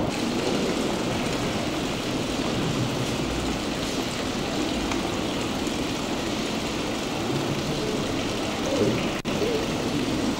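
Fountain water splashing: a steady, even hiss, broken off for an instant about nine seconds in.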